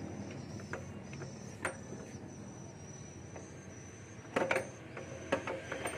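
Scattered metal clicks and knocks as a steering shaft's cross joint is worked up and out of the engine bay, the dry, sticking shaft still catching a little; a short cluster of louder knocks comes about four and a half seconds in.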